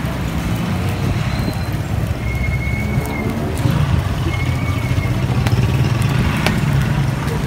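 Steady low rumble of street traffic or a nearby vehicle engine, with a single sharp click about six and a half seconds in.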